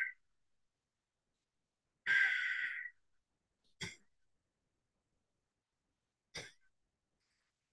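Nasal breathing during alternate-nostril pranayama, picked up close on a headset microphone: a short breath at the start, a longer rushing breath about two seconds in, then two short sharp puffs through the nose, the last near the end.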